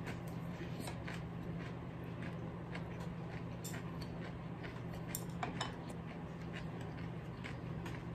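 Chopsticks clicking lightly and irregularly against ceramic bowls and plates while eating, over a steady low hum.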